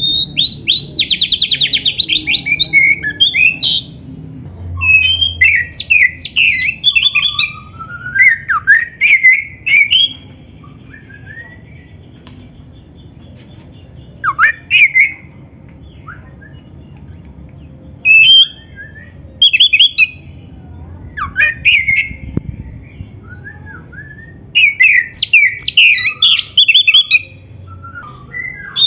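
Oriental magpie-robin (kacer) singing in full, varied song. Bursts of rapid trills, chattering notes and rising whistles are broken by short pauses.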